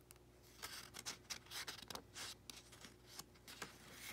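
Soft paper rustling and scraping as a hand grips and turns a book page, a string of short scrapes and ticks over about three seconds.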